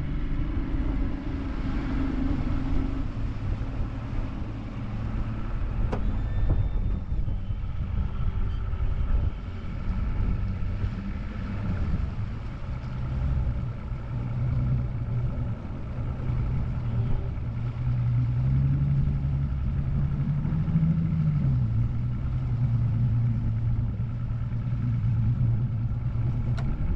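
Mercury Optimax two-stroke outboard motor running under way, with wind and water rushing past. The engine's pitch climbs a little about two-thirds of the way in, then drops back to a steady run.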